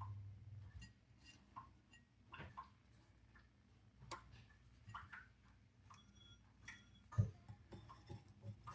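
Faint, irregular clicks and taps of hands and kitchen items being handled. A low hum fades out in the first second, and a sharper knock comes about seven seconds in.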